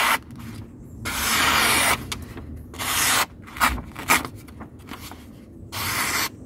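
Knife blade slicing through a sheet of printer paper: several hissing cuts, a long one about a second in and another near the end, with shorter broken strokes between. The TOPS Tex Creek XL's 1095 carbon-steel edge, dulled by hard batoning, still cuts well but snags a little near the tip.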